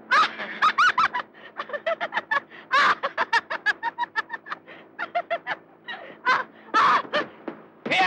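People laughing and shouting excitedly in quick, choppy bursts, over a steady low hum.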